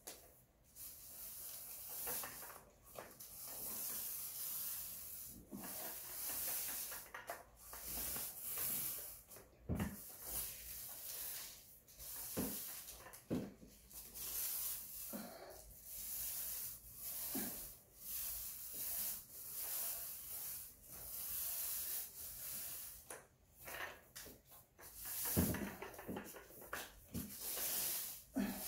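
Paint roller rolling paint on, back and forth, each stroke a hiss, one every second or two, with a few soft knocks in between.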